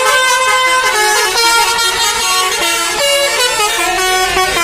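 Telolet horns on Indonesian buses, multi-tone musical air horns, playing a stepping melody of short held notes, with several tones sounding together. A low rumble comes in near the end.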